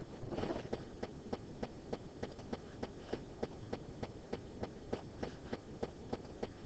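Faint, steady ticking, about three even ticks a second, over quiet room tone, with a brief soft rustle just after the start.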